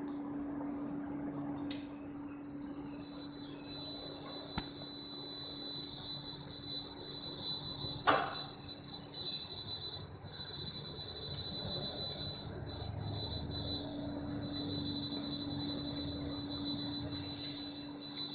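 A steady high-pitched 4-kilohertz test tone from a function generator, switched on about three seconds in and holding at one pitch. A low steady hum sits under it, and there is a single click about eight seconds in.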